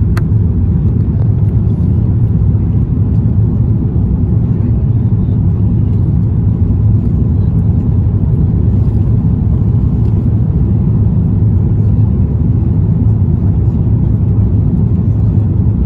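Steady, loud low rumble inside an airliner cabin on final approach, with the flaps extended: engine and airflow noise carried through the fuselage.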